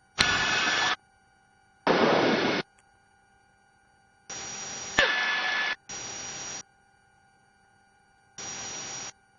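Short bursts of static hiss in the helicopter's headset audio, switching on and off abruptly about six times, each under a second long.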